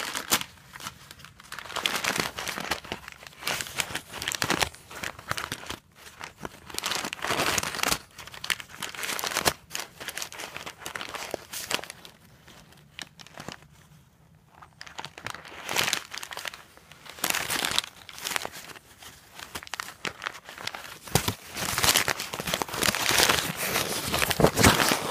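Tissue paper crinkling and tearing as an English bulldog puppy chews and rips at it, in irregular bursts. A quieter spell comes about halfway, and the crinkling gets busier and louder near the end.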